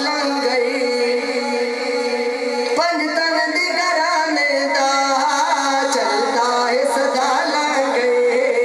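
A young man singing a devotional naat solo, amplified through a handheld microphone, in long held notes that bend and ornament in pitch, with no instruments to be seen.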